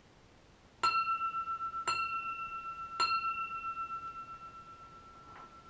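A chime struck three times about a second apart, each strike ringing the same high note, which lingers and slowly fades over several seconds.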